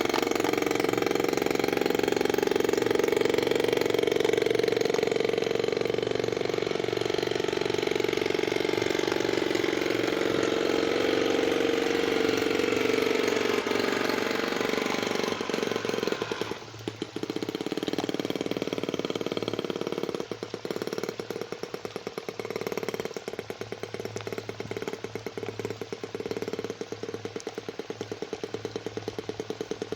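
The RC boat's small gasoline engine runs at high throttle, its pitch wavering. A little past the halfway point it drops off sharply and settles into a quieter idle with rapid, even firing pulses.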